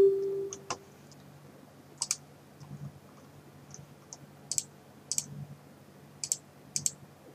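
Computer keyboard keys and mouse clicks: scattered, irregular clicks, with a louder click at the very start, as a login form is filled in. A faint steady hum sits underneath.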